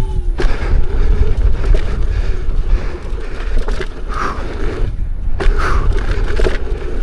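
Wind rushing over the microphone and the tyre of a Lynx electric unicycle rolling fast over dirt and rocks, with scattered knocks from bumps in the trail.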